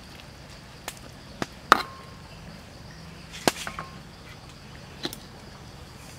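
Metal ladle knocking against a steel wok while stirring soup: about five sharp clinks. The two loudest, a little under two seconds in and about halfway through, each ring briefly.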